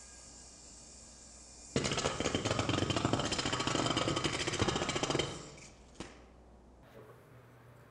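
A spinning plastic Fizz yo-yo touches down and runs along a hard floor (walk the dog), making a loud buzzing rattle for about three and a half seconds before it is pulled back up. Before that there is a faint whir of it sleeping at the end of the string, and a single click near the end as it returns to the hand.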